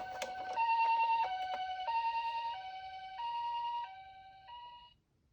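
Toy ambulance's electronic sound unit playing the Japanese two-tone 'pee-po' ambulance siren, alternating high and low about every 0.6 s. It gets quieter near the end and then stops.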